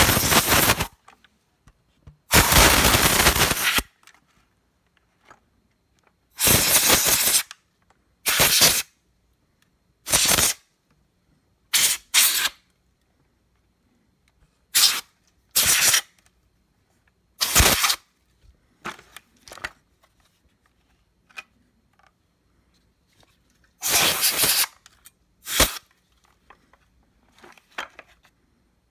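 Compressed air blasted through a red nozzle straw into a Hoover WindTunnel vacuum's motor, blowing dust out of its vents and rear bearing. The bursts come in about a dozen sharp-edged hisses with pauses between: two long ones of a second or more at the start, then shorter blasts and brief puffs.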